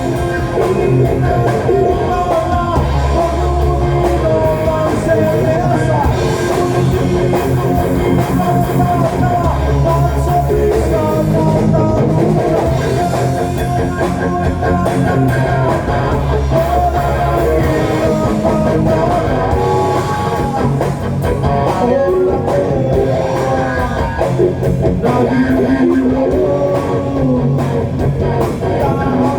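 Rock song in F minor with a sung melody, bass and drum kit, with electric guitar playing along, heard through a home-built amplifier and hi-fi speakers.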